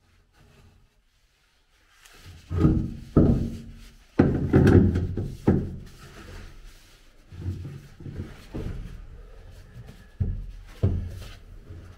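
A run of wooden knocks and thunks with some rubbing, as parts are handled and test-fitted. It starts after a short quiet, is loudest for a few seconds, then goes on more softly with a few further knocks.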